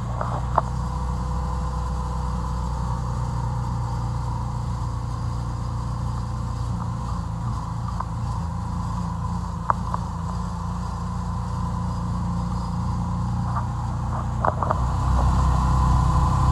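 A car driving along steadily, its engine and road noise making a low, even hum, with a few light clicks, one about ten seconds in.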